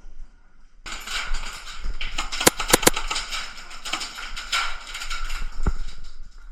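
Airsoft guns firing, a rattle of shots starting suddenly about a second in, with a cluster of sharp cracks around two and a half to three seconds in and one more near the end.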